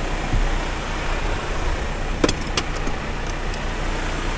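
Timber truck's diesel engine idling steadily, with two sharp clicks a little over two seconds in as a side storage compartment hatch is opened.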